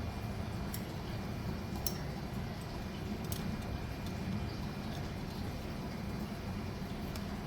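A few light metallic clinks of clutch plates being handled during clutch assembly, spaced about a second apart, over a steady low background hum.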